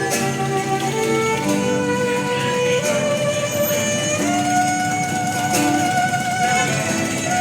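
Street musicians playing live string music: a fiddle carries a melody of held notes, with plucked guitar accompaniment underneath.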